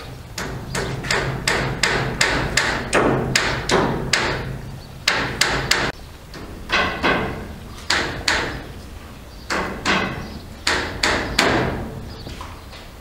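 A series of sharp knocks like hammer blows, about three a second in runs of several with short pauses between.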